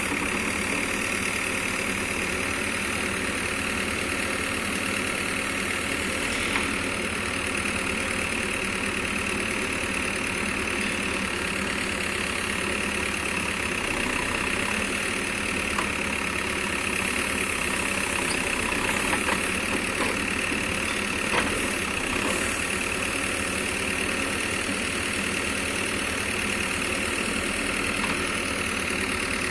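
Backhoe loader's diesel engine running steadily as the backhoe digs in sandy soil, with a few light knocks from the arm and bucket.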